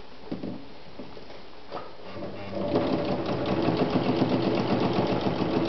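Vesna Bagat 703 sewing machine starting up a little over two seconds in and running at a steady speed with a fast, even stitch-by-stitch clatter. It is sewing through three layers of boot leather, and a few light handling knocks come before it starts.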